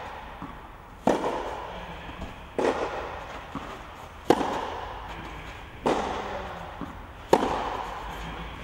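Tennis ball struck by rackets in a rally, five hits about every one and a half seconds, each crack ringing out in the echo of a covered hall.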